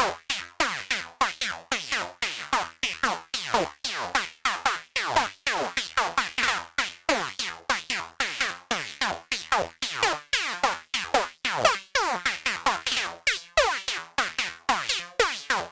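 High-pitched night full-on psytrance lead from the reFX Vanguard software synthesizer playing a fast melodic sequence alone, about four short notes a second, each with a quick downward pitch sweep.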